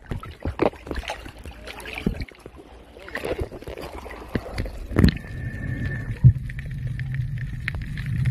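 Water sloshing and splashing against a camera at the sea surface, with irregular knocks. From about five seconds in, a boat engine drones steadily through the water, with a faint high whine over it.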